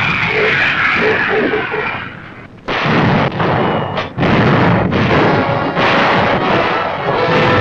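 Artillery and tank guns firing in a heavy barrage, with shots and shell explosions over a continuous rumble. The firing dips briefly about two seconds in, then comes back loud with several sharp reports. Music begins to come in near the end.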